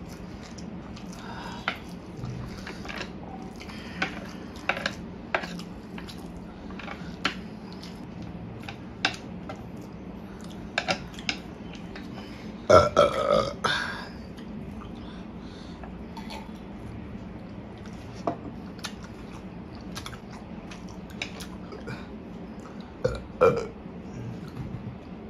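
Close-miked eating of spicy instant noodles with chopsticks: scattered slurps, lip smacks and light clicks of chopsticks, with a longer, louder burst of mouth noise about halfway through and another shortly before the end.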